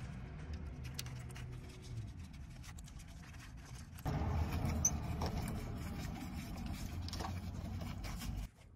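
Gloved hands rustling and scraping as they handle the new ABS wheel-sensor cable against the suspension, with small clicks, over a low background rumble that grows louder about four seconds in.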